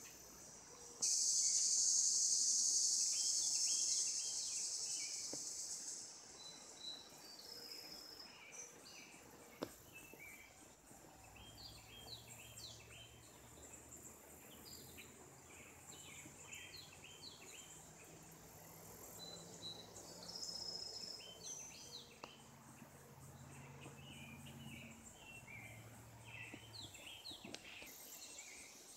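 Insects buzzing with birds chirping: a loud, high insect buzz starts suddenly about a second in and fades out over the next few seconds, then many short chirps go on, with a faint low hum in the middle.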